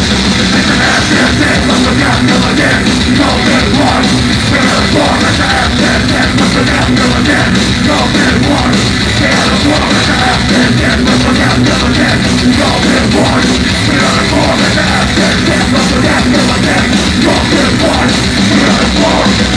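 Loud live concert music playing over a club PA, heavy and rock-like, heard from within the crowd.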